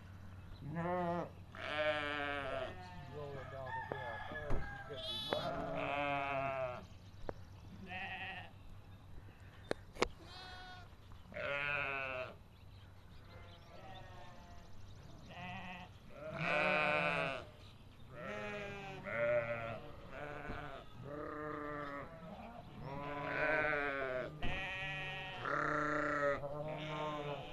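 A flock of ewes and young lambs bleating, one call after another and sometimes overlapping, some calls higher and some lower. A single sharp click sounds about ten seconds in.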